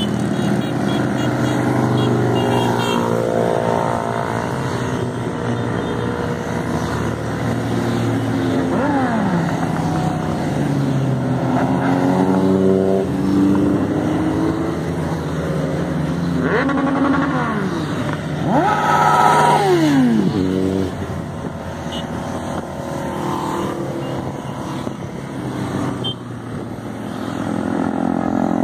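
A stream of motorcycles, cruisers and sport bikes, riding past one after another, each engine note dropping in pitch as it goes by. The loudest pass comes about two-thirds of the way in.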